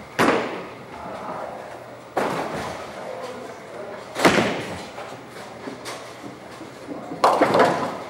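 Bowling alley sounds: a series of heavy thuds and crashes from bowling balls and pins, each echoing through the hall. There are about four impacts, the loudest about four seconds in and a double one near the end.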